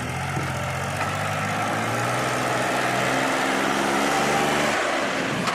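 Diesel engine of heavy farm or earthmoving machinery running steadily, its pitch creeping up a little through the middle and dropping away near the end.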